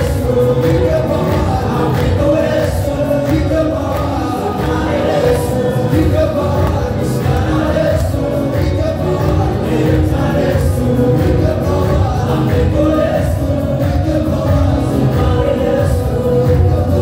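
Church choir singing an Amharic gospel song, the voices held continuously and evenly loud.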